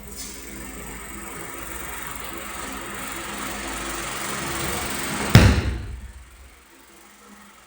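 A person thrown in an aikido kokyu-nage lands on the mat with one loud thud about five seconds in, after a few seconds of rustling movement that grows steadily louder.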